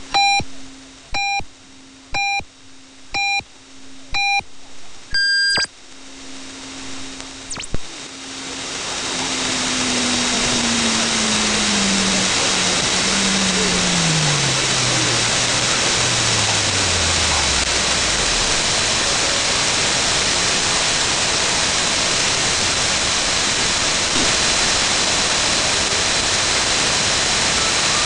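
Shortwave AM reception of the CNR1 jammer on 13020 kHz giving the top-of-hour time pips: five short beeps a second apart, then one longer, higher beep, over a low steady hum. The transmitters then go off air and the audio turns to loud, steady shortwave static, with a whistle falling slowly in pitch over about ten seconds.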